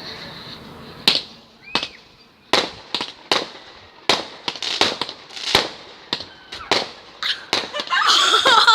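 Fireworks going off: a string of sharp bangs, roughly one or two a second, each with a short fading tail. Near the end a louder stretch with wavering pitched sounds joins in.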